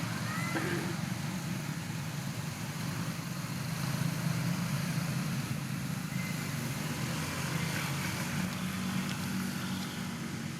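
Steady low rumble of an engine running at idle.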